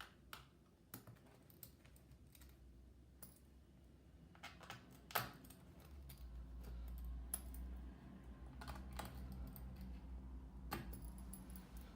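Scattered light clicks and taps of a precision screwdriver driving the bottom-cover screws of a MacBook Pro, with a sharper knock about five seconds in.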